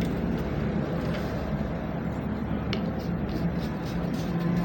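Road traffic noise, a steady rumble with a low hum and a few faint clicks.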